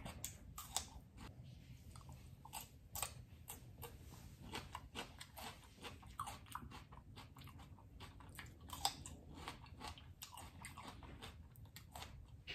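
Chewing raw bell pepper pieces: a continuous run of small, crisp crunches and mouth clicks, faint, with a slightly louder crunch near the nine-second mark.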